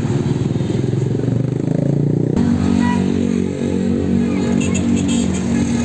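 Roadside traffic: motorcycle and heavy-vehicle engines running by. About two and a half seconds in, the sound changes abruptly to a steadier, even-pitched engine drone.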